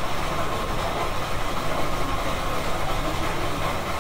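Coffee shop room ambience: an even, steady low rumble with no distinct events.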